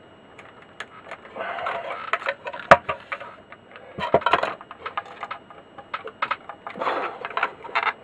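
Clicks, rattles and scraping as the circuit board of a Memotech ZX81 add-on keyboard is pushed and worked against its aluminium case, where it is stuck. One sharp knock comes a little under three seconds in.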